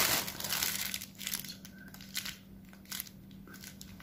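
Crinkling of paper and plastic takeaway food packaging being handled, loudest in the first second, then scattered crackles and clicks.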